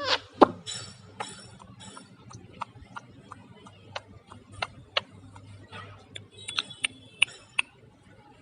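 Irregular clicks and taps from a pet parrot, with a few short squeaky chirps; the loudest clicks and squeaks come in a cluster near the end.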